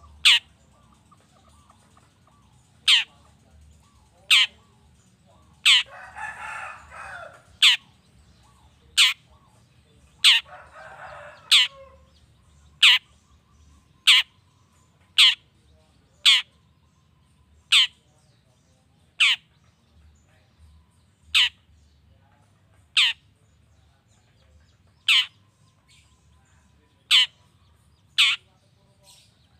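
Long-tailed shrike calling: a string of some twenty sharp, short notes, each sweeping quickly downward, repeated roughly every second or two. A harsh, rasping chatter lasting about a second and a half comes about six seconds in, and another about ten seconds in.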